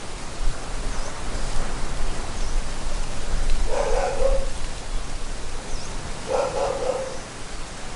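A dog barking in two short bouts, about 4 s and 6.5 s in, over a steady wash of beach surf and wind in the trees.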